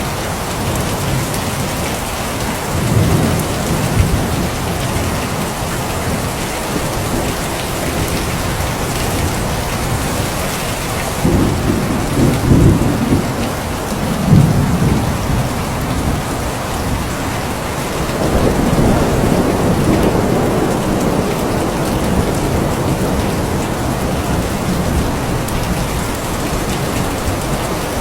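Steady heavy rain with thunder rumbling several times: short low rumbles about three seconds in, a stronger run of rumbles around the middle, and a longer rumble a little past halfway.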